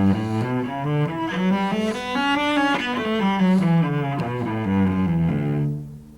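Cello playing a scale up over several octaves and back down in even, separate notes, fingered in low positions without open strings.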